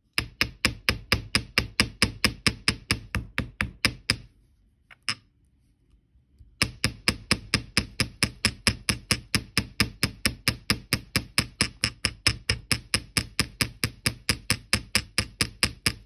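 Small metal hammer tapping a copper wire loop on a metal bench block in quick, even strikes about five a second, flattening and hardening the loop. The tapping runs about four seconds, breaks off with one lone strike, then starts again about six and a half seconds in.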